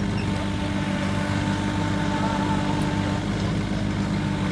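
An engine running steadily, a low, even drone with a steady hum above it.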